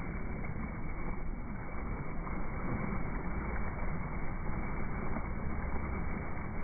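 Hooked blue marlin thrashing and splashing at the surface beside the boat, over the steady low running of the boat's engine.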